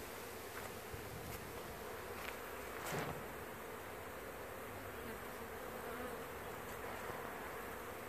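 Honey bees flying in numbers around an observation hive, a steady buzzing hum. One brief louder sound about three seconds in.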